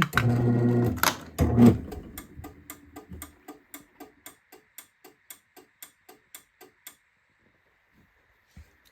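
Craftsman chain-drive garage door opener's light relay clicking rapidly, about four clicks a second for some seven seconds, as the light flashes to signal a safety-sensor fault. A low hum runs under the first three seconds.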